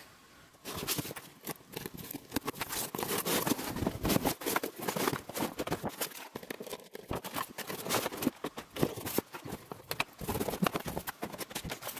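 Cardboard box being opened and unpacked by hand: flaps and packaging scraping, rustling and knocking in a long run of irregular clicks. It begins about half a second in and stops just before the end.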